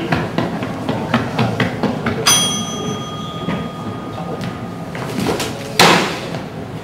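Longsword sparring: quick clacks and knocks of the practice swords, then a sharp strike a couple of seconds in that rings on with a metallic tone for over a second, and a loud hard hit near the end.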